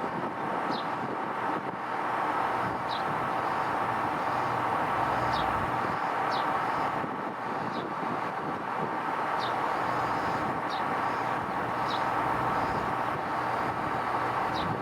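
Steady rushing background noise, with a short high chirp falling in pitch about once a second.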